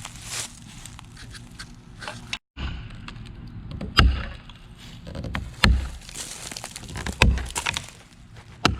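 Four heavy wooden thuds about a second and a half apart, like cut oak log rounds being tossed onto a load of wood.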